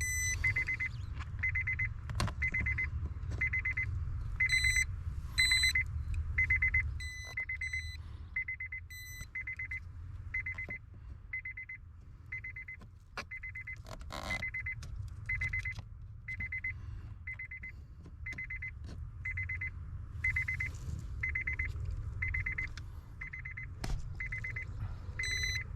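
Honda Accord's electronic warning chime ringing over and over at an even pace, about three chimes every two seconds, with the ignition switched on. A few clicks and knocks from handling come through it.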